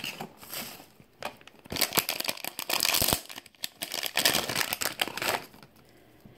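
Silver foil wrapper of a Pop Mart blind-box figure crinkling in several bouts as it is pulled out and opened by hand.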